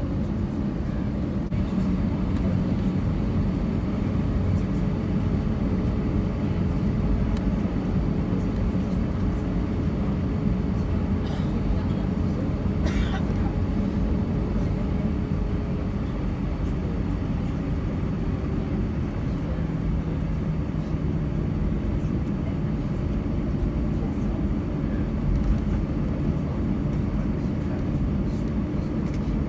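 Steady low rumble of cabin noise inside an Airbus A321 on the ground, its engines running at low power. A faint steady hum changes pitch about two-thirds of the way through, and a brief faint higher sound comes near the middle.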